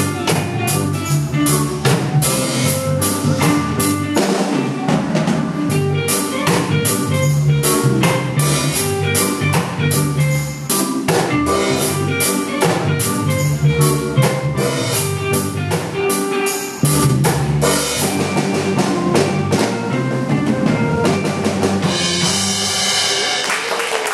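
Drum kit played by a child drummer, with bass drum, snare rimshots and cymbals, over a reggae-style backing track with bass and guitar. The music stops about two seconds before the end, leaving a noisy wash.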